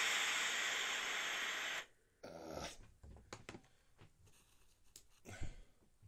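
Philips GC 8620 steam generator iron blowing a loud, steady hiss of steam that stops abruptly about two seconds in. Quiet clicks of handling follow, with a brief breathy sound and a soft knock about five seconds in.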